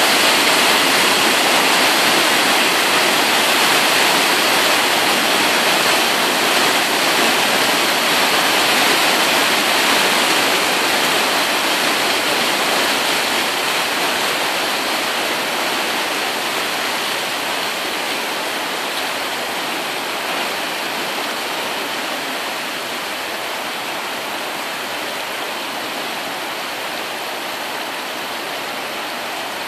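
Steady rushing of churning propeller wash from the S.S. Badger car ferry, slowly fading as the wash settles and the ship pulls away.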